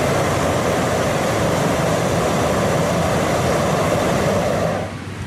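Hot air balloon propane burner firing into the envelope during inflation: a loud, steady roar that cuts back near the end.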